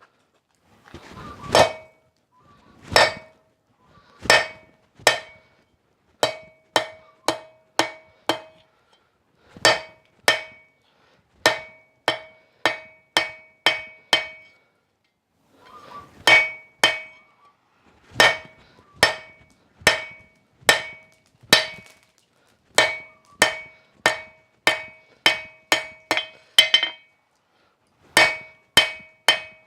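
Hand hammer forging a 12 mm round steel bar on an anvil: sharp blows with a clear metallic ring, about one to two a second in runs broken by short pauses.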